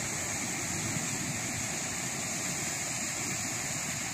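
Shallow rocky stream flowing over stones: a steady rush of water, with an even high hiss above it.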